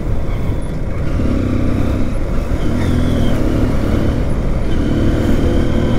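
Motorcycle engine running at road speed under a steady rush of wind and road noise, its note swelling three times as the rider accelerates to overtake the vehicle ahead.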